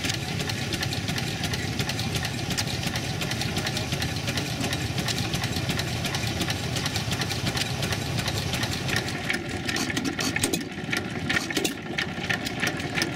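Antique flywheel stationary gas engine running steadily with a rapid clatter while driving a water pump. About two-thirds of the way in the sound changes to another small stationary engine with sharper, more separate clicks.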